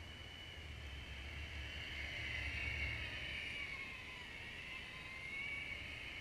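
Electric drive motors of a remote-control tracked snow vehicle (Veroma Snow Tiger weasel model) whining as it drives over snow, the pitch sliding up and down as it steers. Loudest about three seconds in, as it passes close.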